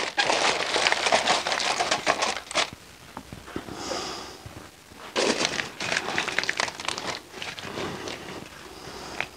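Aluminium foil crinkling as it is pressed and crimped around the rim of a steel stock pot, in two bouts with a pause of about two seconds between them.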